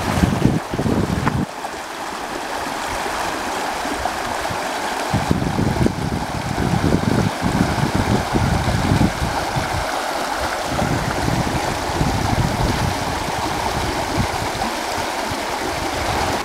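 Creek water rushing and splashing steadily as it pours over the edge of a concrete low-water crossing and through its culverts. Irregular low gusts of wind buffet the microphone.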